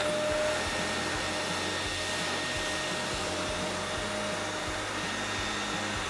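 Hoover C2401 backpack vacuum cleaner running steadily while vacuuming carpet: a constant rush of air with a steady motor whine.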